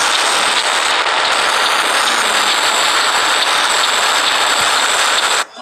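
Loud, steady, harsh hiss-like noise from a Scratch game's glitchy "you lose" screen. It cuts off suddenly near the end.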